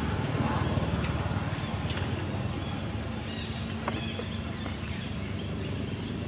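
Steady outdoor background noise with a low rumble, and a few short rising bird chirps.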